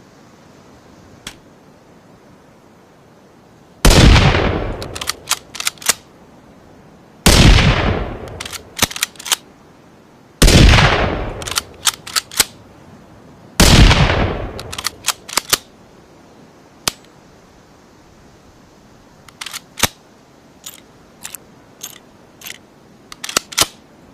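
Rifle sound effect: four loud shots about three seconds apart, each fading out over a second or so and followed by a quick run of sharp mechanical clicks. Near the end there is a scattered string of further clicks with no shot.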